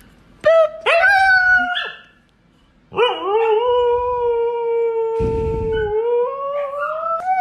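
Husky howling: two short rising yowls, then after a brief pause one long howl that holds steady and rises in pitch near the end. A short muffled bump sounds about five seconds in.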